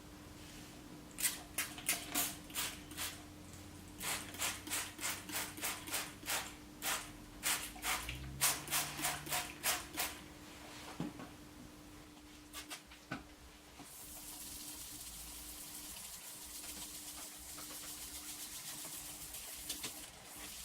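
Trigger spray bottle squirting water in a quick series of short hissing sprays, roughly two a second, then a steady hiss that begins about two-thirds of the way in.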